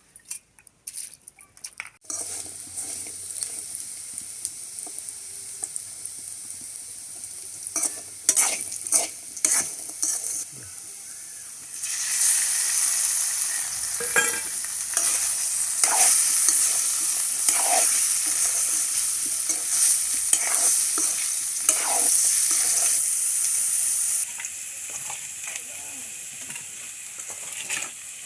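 Food sizzling as it fries in hot oil in a pan. The sizzle starts suddenly about two seconds in and grows louder about halfway through, with a spatula knocking and scraping against the pan as it is stirred.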